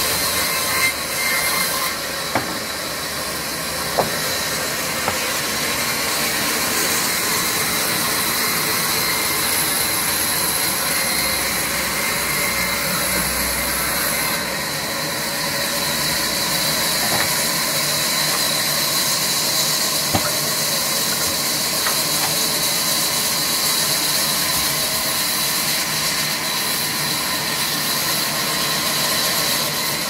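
Sawmill band saw running steadily, with occasional sharp knocks, most in the first five seconds and a couple later on.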